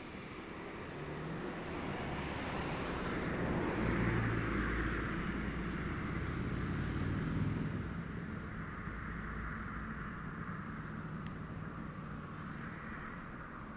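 A vehicle going past: a steady rush with a low rumble that swells over a few seconds, is loudest in the middle, then slowly fades away.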